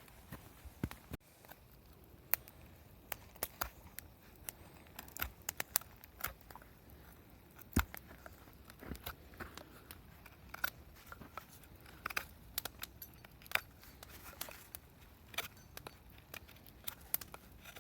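A blade shaving and whittling wood: irregular short scraping strokes and small clicks as curls of wood are cut away to bevel the end of a stick.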